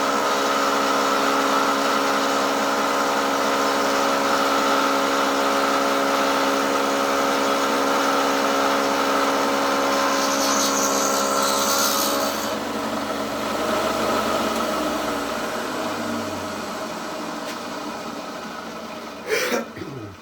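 Milling machine motor and spindle running steadily with a whine, then switched off about twelve seconds in and spinning down, its pitch and level falling away. A short sharp knock near the end.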